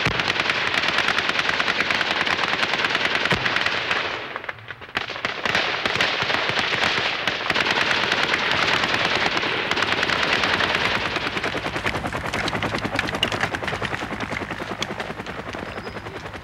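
Sustained automatic gunfire: rapid shots in long continuous bursts. It breaks off briefly about four seconds in, then resumes and slowly fades toward the end.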